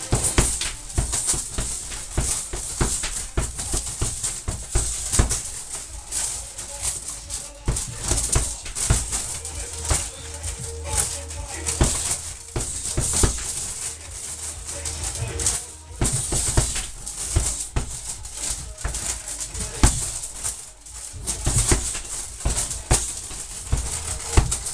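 Gloved punches landing on a hanging punching bag in quick, irregular flurries, with many hits in close succession.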